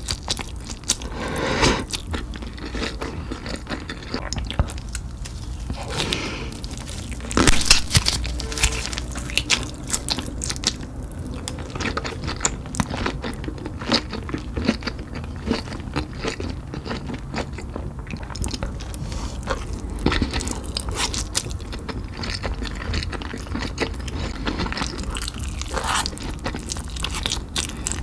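Close-miked eating: a person biting and chewing noodles and kielbasa sausage, with many short, sharp crunchy clicks.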